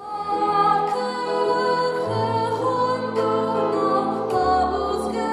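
A girl singing a song into a handheld microphone over instrumental accompaniment. The low bass note changes about two seconds in and again near the end.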